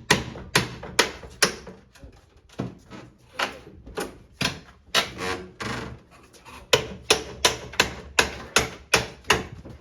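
Repeated sharp blows on a wooden packing crate being knocked open, about two a second, in three runs with short pauses between.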